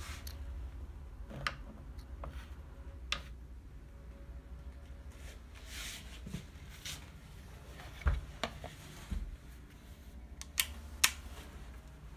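Handling noise: a handful of sharp clicks and knocks, loudest about two-thirds of the way in and near the end, over a low steady hum.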